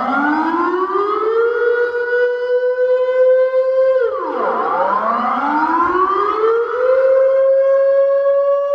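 Air-raid siren wailing: its howl climbs to a held high pitch, slides down about four seconds in, and climbs back up to hold again.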